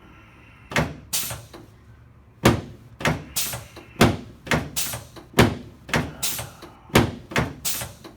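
Chiropractic drop table: its pelvic drop sections being set and dropped again and again during a drop-technique pelvic adjustment for a short leg. About fourteen sharp, loud clacks, often in quick pairs, starting about a second in.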